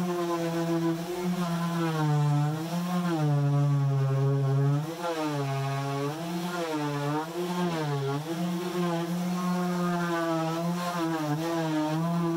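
Random orbital sander running as it sands a wooden dresser top. Its motor hum keeps dipping and rising in pitch as the sander works across the wood.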